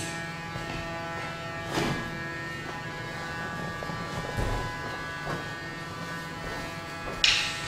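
A steady electrical buzz with many overtones, with a few soft knocks and thumps over it.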